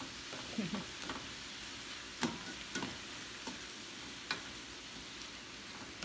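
Sliced peppers, onions and carrots sizzling as they sauté in a frying pan, stirred and tossed with nylon tongs, with a few sharp clicks of the tongs against the pan.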